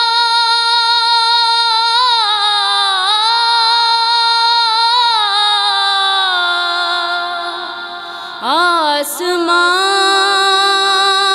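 A young woman's solo voice singing an Urdu naat with no instruments, holding long, ornamented notes. The phrase fades about eight seconds in and a new one starts with a rising swoop.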